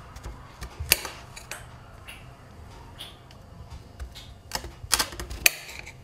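A kitchen knife clicking and tapping on a glass cutting board as button mushrooms are sliced. There are several sharp, separate clicks, the loudest about a second in and a cluster of them near the end.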